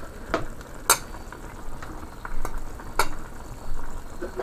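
A utensil stirring beef and potatoes in a pot, clinking sharply against it about a second in and again near three seconds, over the steady sizzle of the dish cooking in its stock.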